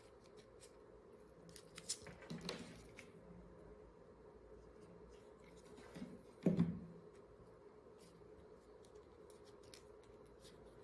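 Faint rustling and small clicks of velour paper leaves being handled and pressed between fingers. One louder short sound comes about six and a half seconds in.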